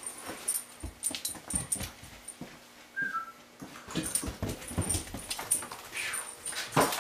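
A dog moving about and playing, with a brief high whine about three seconds in among scattered clicks and knocks; the loudest knock comes near the end.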